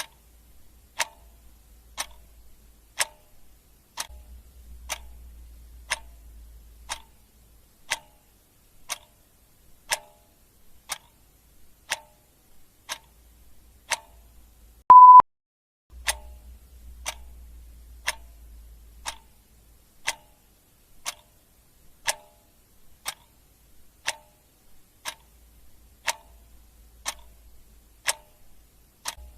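Clock ticking sound effect, one tick about every second, with a single short, loud beep about halfway through.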